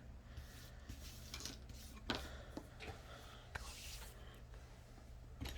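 Faint handling noise over a low steady hum: light rustling and a few soft clicks, about two seconds in and again shortly after, from double-sided adhesive tape being handled.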